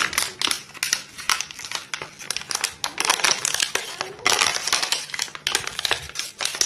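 A dog chewing and crushing an empty plastic water bottle, the thin plastic crackling and crinkling in quick, irregular bursts.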